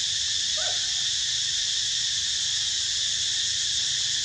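Steady high-pitched chorus of insects, unbroken and even, with one brief faint chirp about half a second in.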